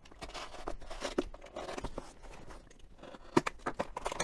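Packing tape on a cardboard shipping box being slit with a small knife and torn open: irregular scratchy crackling and tearing, with one sharp crack a little over three seconds in.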